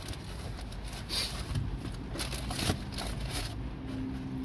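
Crinkling and rustling of a cardboard fried-chicken bucket as a hand digs into it, over the low steady rumble of a vehicle cabin. A low steady humming tone starts near the end.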